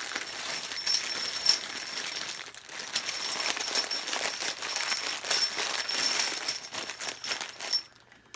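Brass rifle cartridge cases (450 Bushmaster) clinking and rattling against one another as they are rolled around inside a bag to coat them with case lube. The rattling stops near the end.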